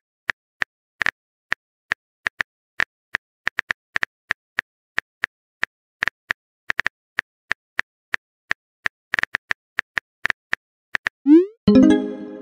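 Simulated phone-keyboard typing: rapid, irregular key clicks as a text message is typed. About 11 seconds in comes a short rising pop and a brief pitched message-sent sound, the loudest part, as the message is sent.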